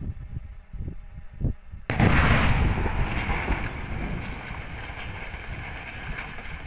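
Demolition charges detonating at the base of a tall factory chimney: a sudden explosive blast about two seconds in, followed by a long rumble that slowly fades.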